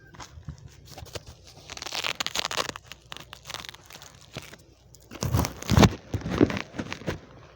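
Rustling and crunching noise with scattered clicks, in two spells, the second and louder one about five seconds in.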